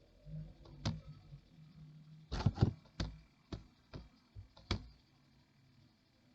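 Computer mouse clicking: about eight short, sharp clicks at uneven intervals, two of them close together about two and a half seconds in, stopping about five seconds in.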